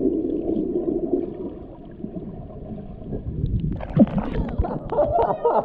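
Underwater sound heard through a submerged camera: a dull, muffled rumble of water as a snorkeler swims through a sea cave. A little under four seconds in, it changes to crackling, gurgling bubbles and splashes as the swimmer rises to the surface.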